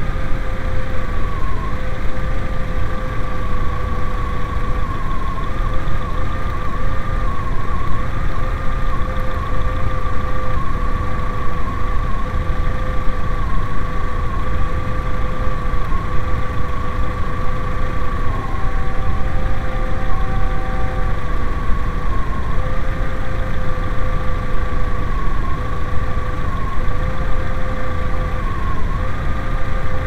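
VW Mk4 2.0L four-cylinder engine running, with a steady rumble and a thin whine that wavers and dips briefly in pitch every few seconds. The engine has an intermittent misfire: moisture on the ignition coil pack is letting spark track across the coil, mainly at cylinder number three.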